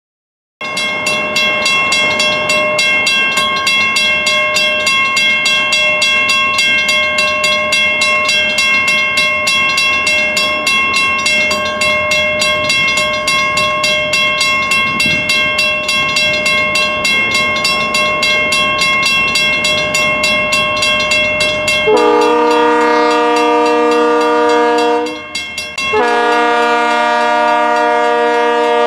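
A bell ringing rapidly and steadily as a diesel freight train approaches. About two-thirds of the way through, the locomotive horn sounds a multi-note chord in two long blasts with a short break between.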